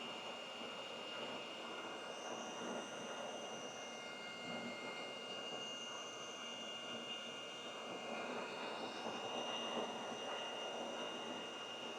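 Steady hiss of a fan or blower from the soldering bench, with a thin high whine held throughout.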